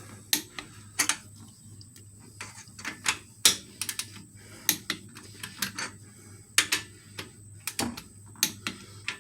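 Click-type torque wrench ratcheting on cylinder head bolts and clicking off at the set 45 ft-lb as each bolt is rechecked: sharp, irregularly spaced metallic clicks, with a steady low hum underneath.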